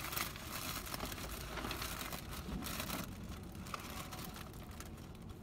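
Paper rustling and crinkling as a brown paper takeout bag and the white paper wrapping inside it are handled. It is densest for the first three seconds or so, then fainter, with a few small clicks.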